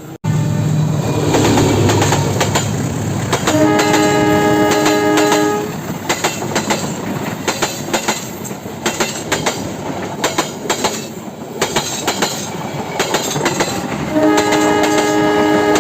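Indonesian CC 206 diesel-electric locomotive passing on the line. It first rumbles loudly, then sounds its multi-note horn in a long blast about four seconds in and again near the end. Between the blasts the wheels clatter and clack over the rails.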